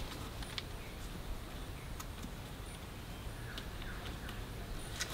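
Faint forest ambience with a few short bird chirps, and scattered light clicks and knocks from the wooden poles of a small shelter frame being handled and fitted.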